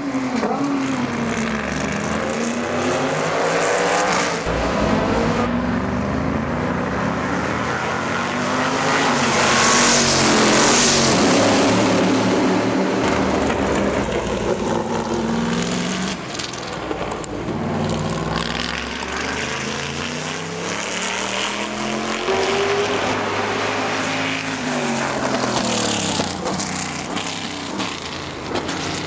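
Corvette C6R GT race cars' V8 engines passing at racing speed, the engine note repeatedly climbing and dropping as they accelerate, shift and lift for corners. The loudest, closest pass comes about ten seconds in.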